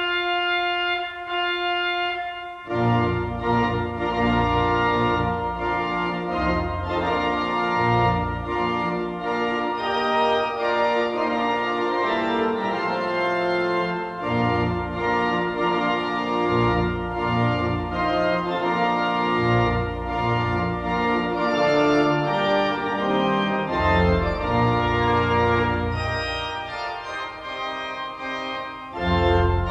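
Organ music in slow, sustained chords; deep bass notes come in about three seconds in.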